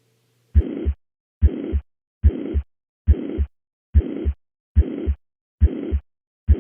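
Heart sounds heard through a stethoscope's diaphragm at the cardiac apex, starting about half a second in: eight beats at about seventy a minute, each a low S1 thump followed by an even, high-pitched murmur that fills systole up to the S2 thump. It is a uniform (holosystolic) systolic murmur, the sign of mitral regurgitation.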